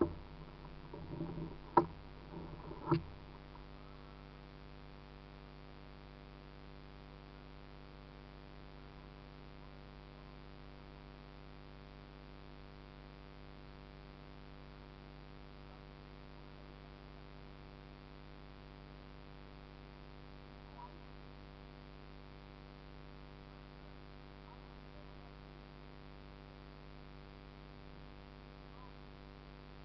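Steady electrical hum with many even tones, with two sharp knocks in the first three seconds.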